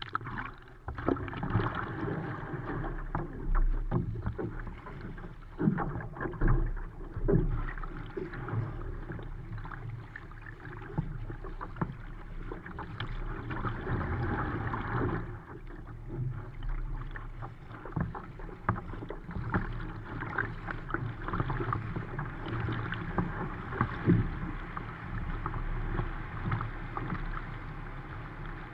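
Sea water splashing and rushing along the hull of a Fenn Bluefin S surfski as it is paddled through choppy waves, with irregular splashes from the paddle blades striking the water.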